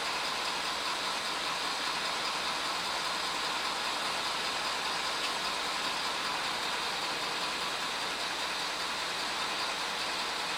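Steady, even hum and hiss inside the cab of a Ford F250 pickup with the truck running at idle.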